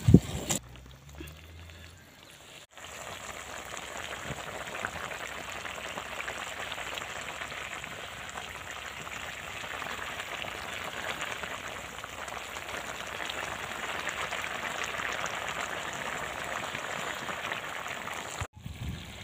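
Crab curry boiling hard in a pot, a steady dense crackle of bubbling and sizzling gravy that starts about three seconds in.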